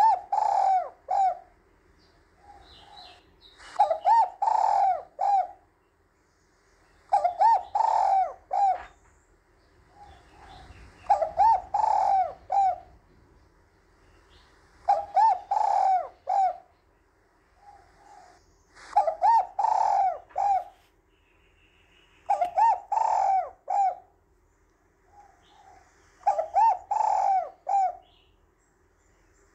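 Spotted dove cooing: a phrase of three or four coos repeated about every three and a half seconds, with a soft short note between phrases.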